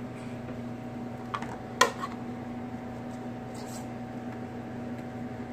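Steady low electrical hum, with two light clicks about a second and a half in.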